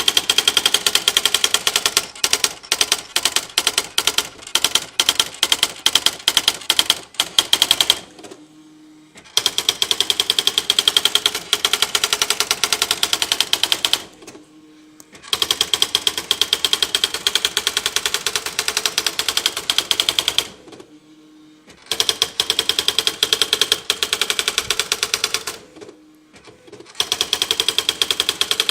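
Smith Corona electronic daisy-wheel typewriter printing on its own, running its built-in demonstration program. It makes long runs of rapid, machine-even character strikes, broken four times by short pauses with a brief low hum.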